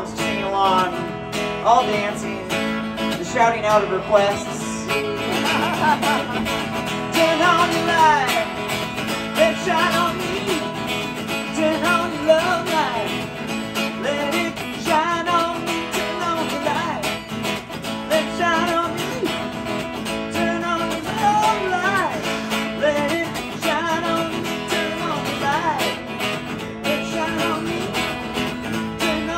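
Live band playing an instrumental jam: strummed acoustic guitar under a lead melody line with bending notes.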